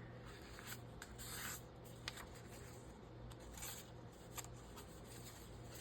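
Sheets of paper being handled and shuffled, with soft rustling and sliding swishes and a small click about two seconds in.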